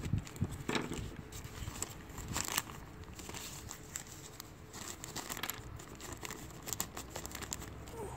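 Clear plastic parts bag crinkling in irregular crackles as it is handled.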